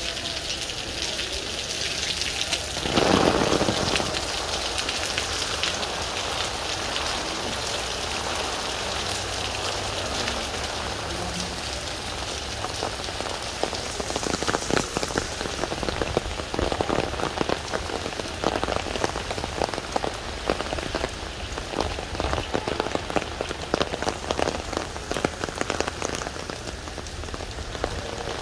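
Heavy rain falling steadily on wet paving. A brief louder rush comes about three seconds in, and sharp, close drop hits grow more frequent in the second half.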